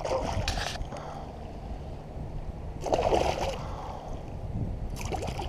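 A hooked largemouth bass thrashing and splashing at the surface beside a kayak, in three short bursts, over a steady low rumble.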